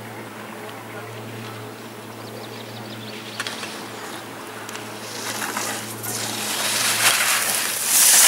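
Alpine skis carving through gates on packed snow: the scraping hiss of the edges grows louder as the giant slalom racer approaches and is loudest as they pass close by near the end. A steady low hum sits underneath.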